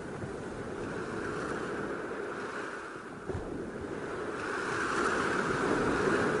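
Rough sea surf breaking on the shore and crashing against rocks: a steady rush of foaming water that grows louder in the second half.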